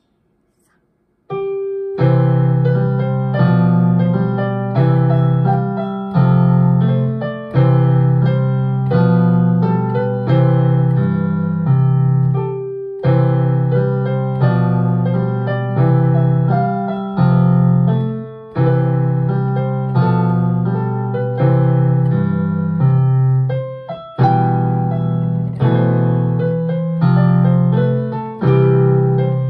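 Piano duet played four hands, starting about a second in after a brief silence and going on with a strong bass line and an even pulse of accented notes.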